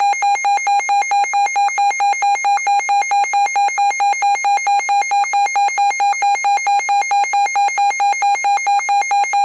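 Electronic emergency-alert attention tone: a single buzzy, high beep pulsing on and off rapidly and evenly, like an alarm.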